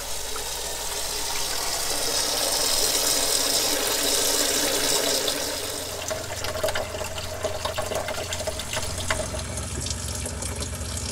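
Water running hard from an RV kitchen faucet onto a pan in a stainless steel sink, a steady splashing rush, with the camper's fresh-water pump humming low beneath it. The splash is loudest in the first half and eases about halfway through as the hum comes up.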